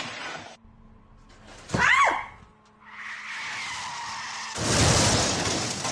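Waves washing onto a shore, swelling into a loud rush of water near the end. About two seconds in, a short squeal rises and falls.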